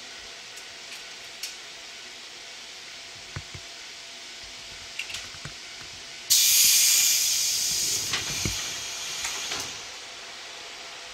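Sudden loud hiss of compressed air venting from a stopped electric commuter train's air system, starting about six seconds in and fading away over some three seconds. Beneath it is a steady faint hiss of the train's running equipment, with a few light clicks before the blast.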